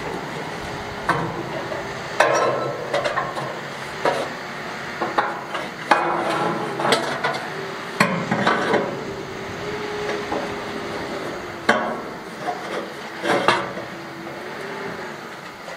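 Irregular metallic clanks and knocks, some ringing briefly, from a steel barbecue smoker barrel being handled and worked on by hand.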